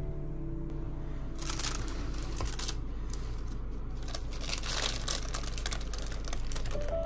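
Baking paper crinkling and rustling in irregular bursts as the parchment lining is gripped and pulled to lift a baked cake out of its metal tray.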